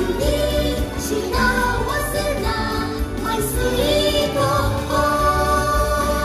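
Stage-show music with singing over a steady beat, played through the theatre's sound system.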